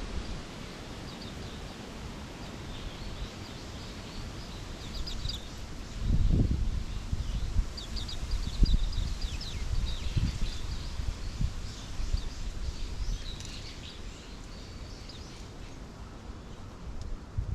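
Small birds chirping in a forest, many short high calls coming and going throughout. Low gusts of wind rumble on the microphone about six seconds in and again a few seconds later.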